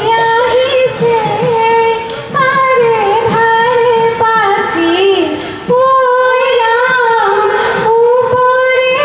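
Women singing a slow melody into stage microphones, with long held notes that slide between pitches.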